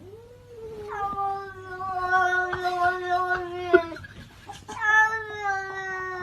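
A cat yowling in two long drawn-out calls, each held at one pitch and sagging slightly toward its end; the second begins about a second after the first stops.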